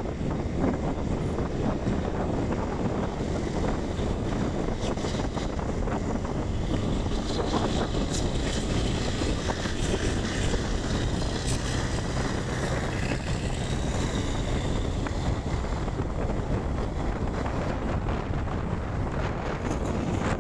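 Wind rushing over the microphone of a camera on a moving vehicle, mixed with steady road and engine noise.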